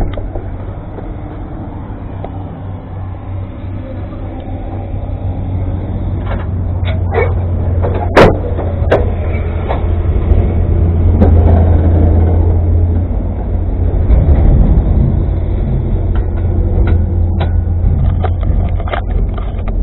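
A steady low rumble under clanks and knocks of metal as the Hino 500 truck's cab is unlatched and tilted forward. One sharp, loud knock about eight seconds in.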